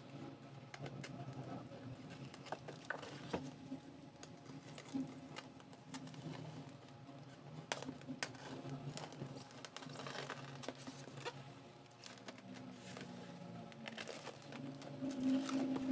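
Hobby knife scoring and slitting packing tape on a styrofoam box: irregular small scratches, clicks and tape crinkles, over a low steady hum in the background.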